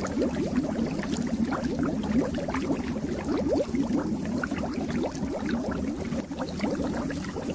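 Aquarium water bubbling and gurgling steadily, a dense run of quick rising bubble blips over a low hum.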